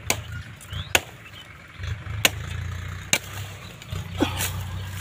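A long-bladed knife chopping through brush stems and branches: five sharp strikes about a second apart, over a steady low hum.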